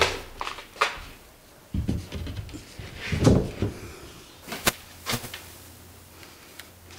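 Knocks, scrapes and thuds of a large sheet of cement backer board being handled and set against wooden wall studs. The loudest is a dull thud about three seconds in, followed by two sharp knocks a little later.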